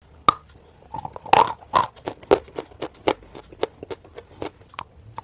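White chalk bitten and chewed close to the microphone: a run of sharp, irregular crunches and cracks, the loudest coming between one and two and a half seconds in.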